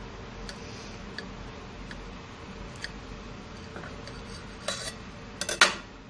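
Knife cutting through a white-bread sandwich, its blade tapping and scraping against the plate: a few light clicks at first, then louder clatters toward the end, the loudest just before it finishes.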